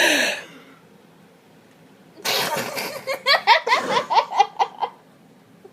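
A girl gasps in a breath, holds it for about two seconds, then lets it burst out and breaks into a run of short, quick laughs: she cannot hold her breath against her fit of hysterical laughing and hiccups.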